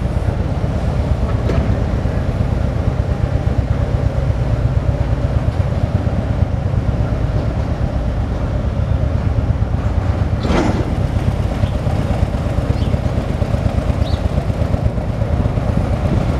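Engine of the vehicle moving a parade float, running slowly with a steady low rumble and a fast, even throb. A short hiss cuts in about ten seconds in.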